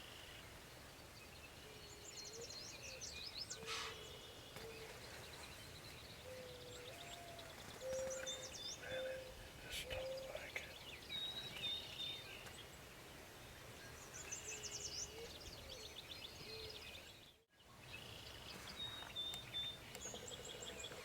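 Faint birdsong outdoors, with several birds calling: quick, high trills and chirps over a lower call of a few notes repeated several times.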